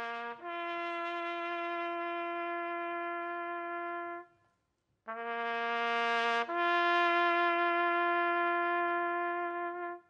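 A single brass horn sounding a bugle call: two phrases, each a short higher note dropping to a long held lower note, the second phrase louder, with a pause of about a second between them.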